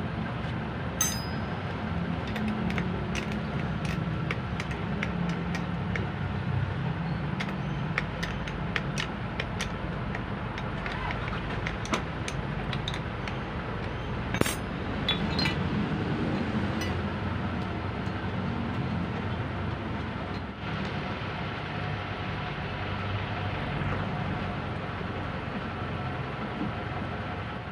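Scattered light metallic clicks and clinks of tools and parts being handled, over a steady low mechanical rumble.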